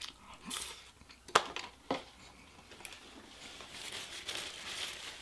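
Two sharp clicks about a second and a half in, half a second apart, then crinkling of takeout wrapping being handled, growing louder toward the end.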